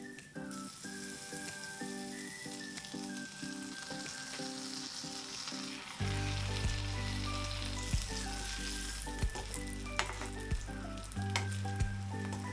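Butter sizzling in a frying pan under halved roasted sweet potatoes browning cut side down, with a bright hiss that thins out in the second half as the heat is turned off. A few sharp clicks near the end as the potatoes are turned with tongs, over background music.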